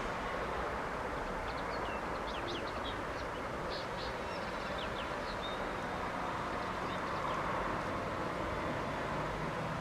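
Small birds chirping in many short, high calls through the first two-thirds, over a steady background noise.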